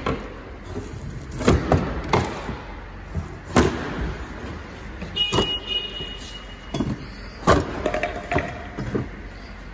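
Long steel pry bar knocking and levering against wooden shipping crates to open them: a series of sharp knocks a second or two apart, with a brief high squeak about halfway.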